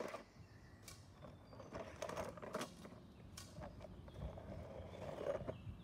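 Rustling and scattered light clicks and knocks of unpacking, as arrows and their packaging are pulled out of a parcel.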